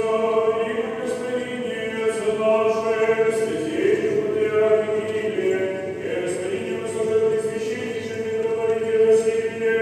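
Choir singing in long held notes over a steady sustained low tone.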